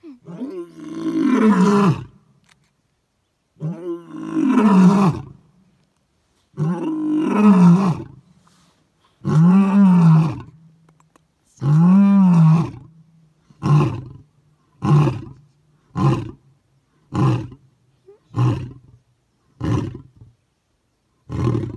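Male lion roaring: five long, deep roars of a second or two each, then a run of about seven short grunts, roughly one a second, as the bout winds down.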